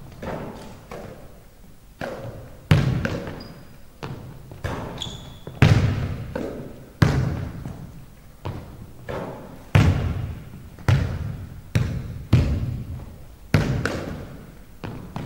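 Basketball bouncing on a hardwood gym floor during shooting practice: a string of sharp impacts about every second or so, each ringing out in the large hall. Two short high squeaks come about five seconds in.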